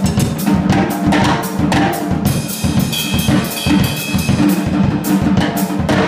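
Drum kit played hard at close range: fast, dense snare and bass-drum strokes with cymbals in a funk groove.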